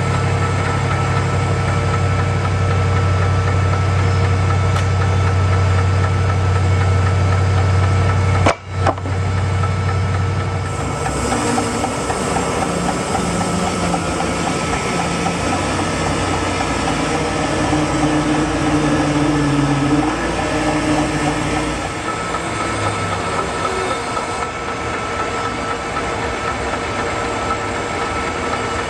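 Sawmill running while milling a log: steady engine drone with a constant whine from the saw. A brief dropout comes about eight and a half seconds in, after which the engine note changes and wavers.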